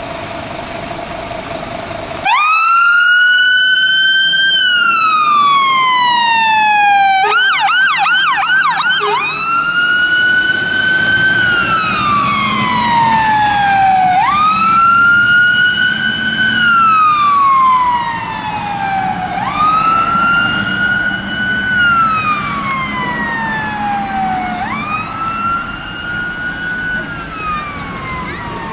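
Fire engine siren switched on about two seconds in, after a steady engine hum. It sounds a long wail that rises quickly and falls slowly, changes to a fast yelp for a couple of seconds, then returns to the slow wail. It grows fainter in the last third as the appliance drives away.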